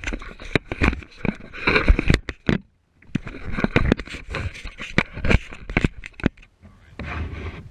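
Irregular knocks, clicks and scrapes on a plastic kayak hull, picked up by a camera mounted on the kayak while a freshly landed bass is handled aboard. The sound cuts out completely for a moment just under three seconds in.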